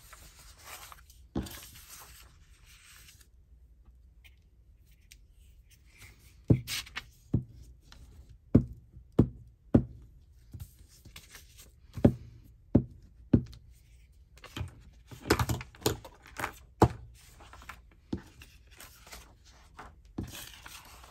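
Hands working paper and tools on a table. A little rustling at first, then from about a third of the way in a run of sharp taps and knocks, about one or two a second, which thins out well before the end.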